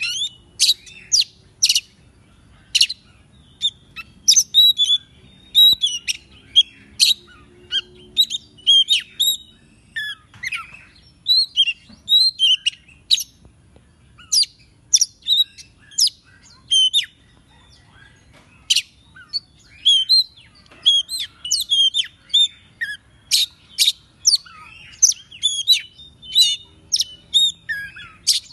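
Oriental magpie-robin singing a long, lively run of sharp whistled notes and chirps, with short gaps between phrases.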